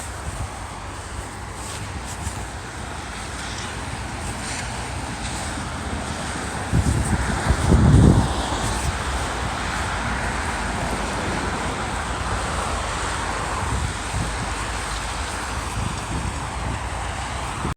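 Outdoor street noise in a snowstorm: a steady rush of passing traffic and wind, with a loud low rumble of wind buffeting the microphone about seven to eight seconds in.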